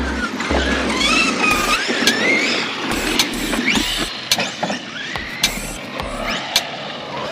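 Electric RC trucks' motors whining and rising and falling in pitch as they rev and let off, with sharp clicks and knocks from tyres, gravel and landings on the dirt.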